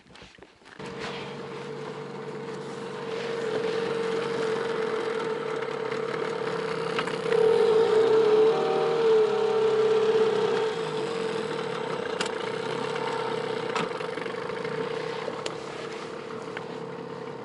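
Hidea 9.8 outboard motor running with a steady drone that begins abruptly. About seven seconds in it grows louder and its pitch wavers briefly, then it settles back.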